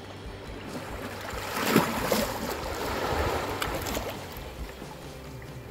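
Sea waves washing in on the rocky shore: the surge swells about a second and a half in, stays strong for a couple of seconds and then fades away.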